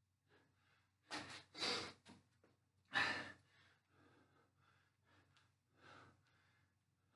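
A man breathing hard from exertion during single-leg squats: loud, hissing exhales about one and three seconds in, then softer breaths every second or so.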